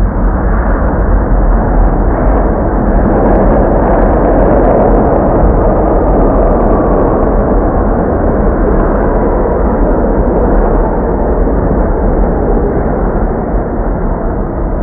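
New York City subway train running, heard from inside the car: a loud, steady rumble and rushing wheel-on-rail noise that swells a little about three seconds in.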